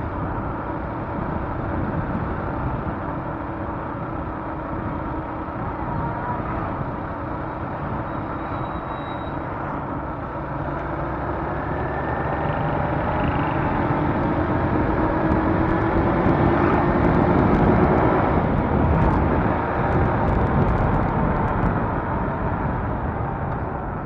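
Motorcycle engine running under steady road and wind noise while riding. The engine note climbs and grows louder in the second half, then eases off near the end.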